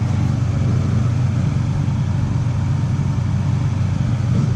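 A car engine idling, a steady low hum.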